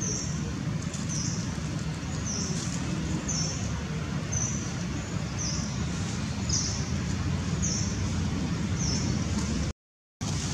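A small bird's short high chirp, repeated about once a second over a steady low rumble. The sound cuts out completely for about half a second near the end.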